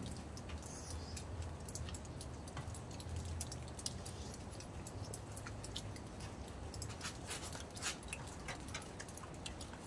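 People eating by hand close to the microphone: chewing and lip-smacking, heard as many small irregular clicks that grow busier in the second half, over a faint low hum.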